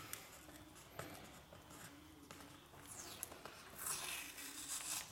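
Faint handling sounds of masking tape being peeled off along the edge of a freshly siliconed threshold bar, with a few light clicks and a short, louder rasp of tape pulling free about four seconds in.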